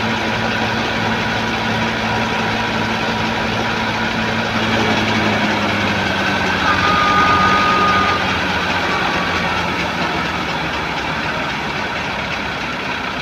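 Wheat thresher machine running steadily: an engine hum under a dense, even noise from the threshing. The engine note drops a little about five seconds in.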